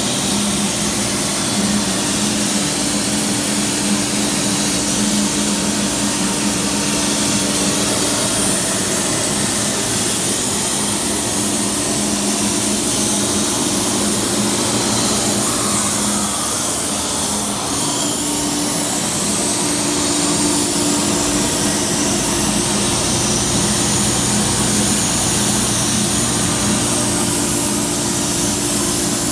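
CNC track-guided cutting torch cutting 3/8-inch steel plate: a steady, loud hissing rush with a steady low hum underneath.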